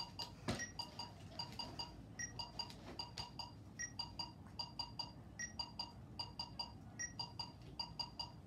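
Electronic metronome beeping faintly, several short beeps a second, with a differently pitched accent beep about every second and a half. A brief knock about half a second in.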